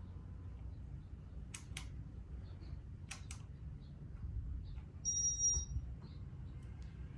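A 52-inch Casablanca San Marino ceiling fan running with a steady low hum. There are two pairs of sharp clicks between about one and a half and three and a half seconds in, and a short high electronic beep about five seconds in.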